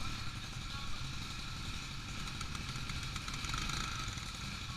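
An ATV's engine running steadily under a low rumble.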